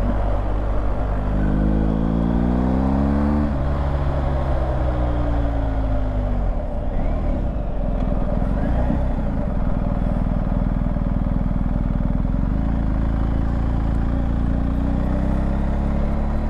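BMW R 1250 GS Adventure Rally's boxer-twin engine under way: it revs up about a second in, shifts up and climbs again, then eases off and runs lower and steadier before picking up again near the end, over a steady rush of wind.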